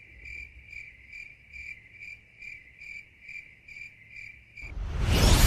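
Cricket chirping steadily, about two and a half chirps a second. Near the end a loud rushing noise swells up and cuts across it.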